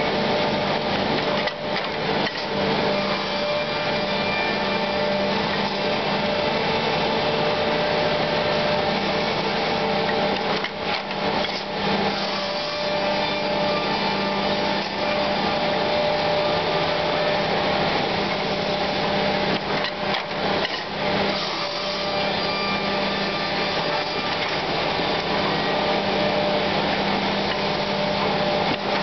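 KOCH sawing, drilling and shaping machine with its drilling and grooving unit running as it processes solid-hardwood chair parts: a steady machine drone with several held hum tones from the motors and spindles, briefly dipping a few times.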